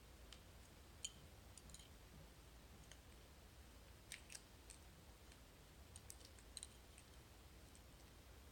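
Faint, irregular metallic clicks and taps from a lock and its small parts being handled, coming in a few small clusters.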